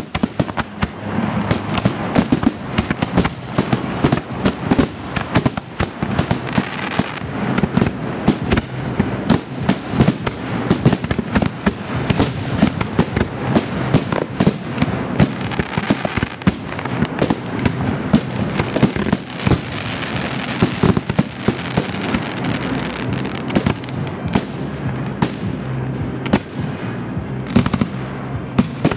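Fireworks display: a dense, unbroken barrage of aerial shell bursts and crackle, several sharp bangs a second, over a low rumble.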